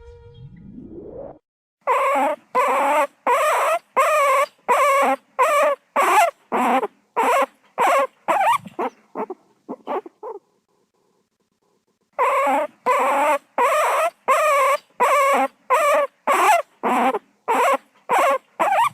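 Guinea pig squealing in repeated short, wavering calls, about two a second, in two long runs with a pause of about two seconds between them. A short rising sweep comes first.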